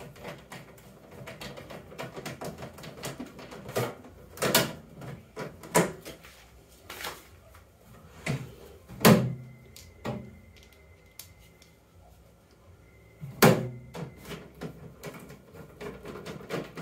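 Sheet-metal microwave oven casing being handled and screwed back together with a screwdriver: scattered small clicks and metallic clatter, with a few louder sharp knocks.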